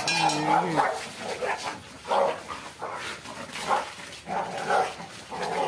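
Dogs fighting, barking in short bursts about once a second, after a longer pitched cry right at the start.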